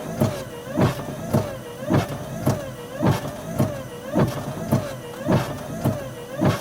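Car windshield wipers on fast speed, heard from inside the car: a regular sweep-and-thump about twice a second, with a wavering motor whine under each stroke, over a steady hiss of heavy rain.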